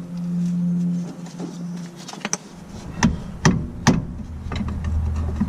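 Hand tools clicking and knocking against metal at a car's rear brake caliper while the parking brake cable's retaining clip is pried at. A short low hum comes first, then several sharp separate clicks, the loudest about halfway through.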